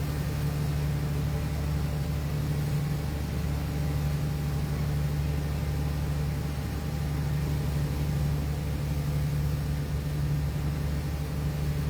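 Boat engine running steadily, a continuous low drone with no change in speed.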